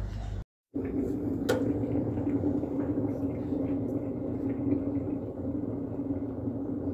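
A steady mechanical hum with a low, even drone. It follows a brief dropout of sound about half a second in, and one sharp click comes at about a second and a half.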